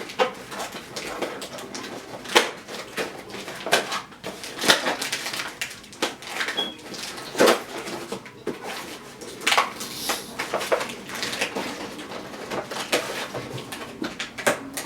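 A mail package being handled and torn open: irregular crackling, rustling and tearing of the packaging, with sharp crinkles every second or so.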